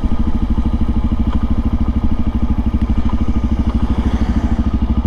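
Kawasaki KLX400's single-cylinder four-stroke engine running as the bike is ridden on the road, an even, rapid pulsing beat.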